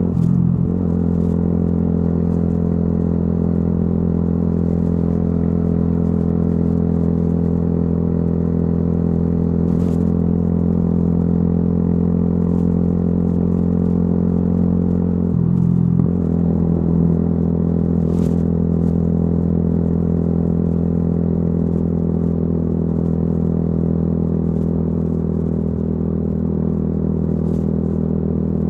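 Yamaha YZF-R125's single-cylinder four-stroke engine running through a modified exhaust under way at a steady pace. The note briefly breaks and settles again twice, just after the start and about fifteen seconds in.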